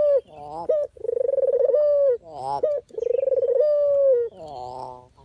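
Puter dove cooing: long, steady, pitched coos about a second and a half each, twice, each followed by short wavering notes.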